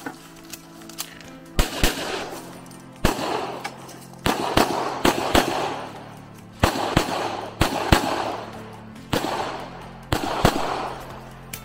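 Pistol shots during a practical shooting stage: about fourteen sharp cracks, mostly in quick pairs a fraction of a second apart, each with a short echo after it.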